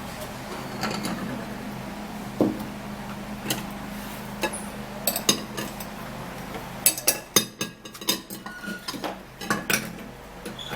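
A metal kitchen utensil clinking and scraping against a dish while papaya seeds are scooped out. The clicks are sparse at first and come thick and fast in the last few seconds.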